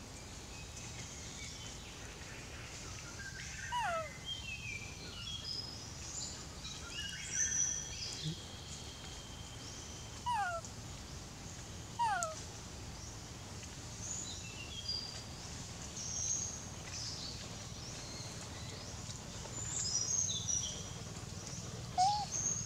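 Several short, falling cries from a long-tailed macaque, about four, ten and twelve seconds in and again near the end, over birds chirping and calling in the trees.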